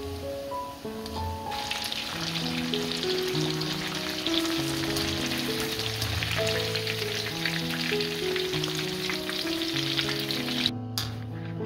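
Breaded pork cutlets deep-frying in hot oil in a wok: a dense crackling sizzle that swells about a second and a half in and cuts off suddenly near the end. Light background music plays underneath.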